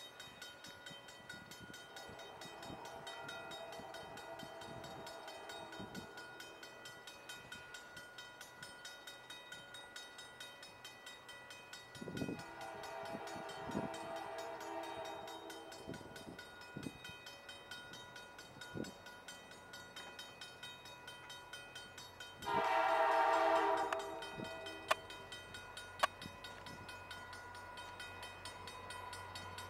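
Horn of VIA Rail F40PH-3 diesel locomotives sounding as the train approaches: a faint long blast a couple of seconds in, a longer one around the middle, and a short, much louder blast about three-quarters of the way through. Near the end the locomotives' engine sound grows louder as they draw near.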